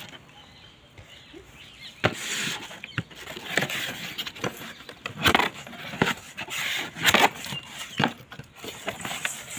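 Cardboard box being opened and a pump lifted out of it: irregular rustling, scraping and light knocks of cardboard and packing, starting about two seconds in.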